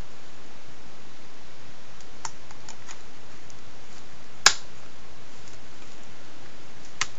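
Light plastic clicks from a Blu-ray case as hands work a disc on its centre hub, with one sharp snap about four and a half seconds in and a smaller click near the end.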